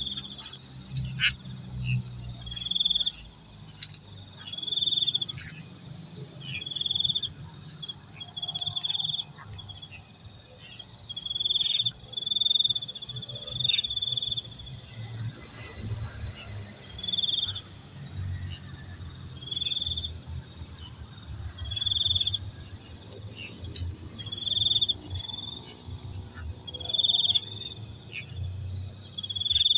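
Insect chorus: a steady high-pitched drone of crickets, with a louder short chirp repeating about every two seconds over a low uneven rumble.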